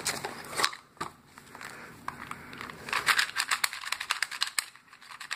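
Packaging of a small 2x2 puzzle cube being handled as it is unboxed: the cardboard box rustles and the cube's plastic wrap crinkles. Scattered clicks run throughout, with a busier burst of crackling a little past the middle.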